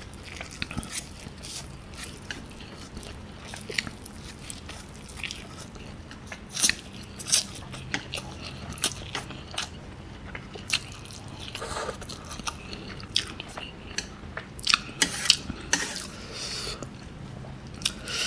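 A person slurping and chewing instant noodles, close to the microphone: irregular wet mouth smacks and slurps, a few of them much louder than the rest.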